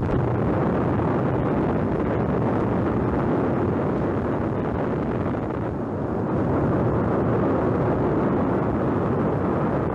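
Erupting volcano's lava falls giving a loud, steady rushing roar with no breaks, heard on a mono 16mm film soundtrack.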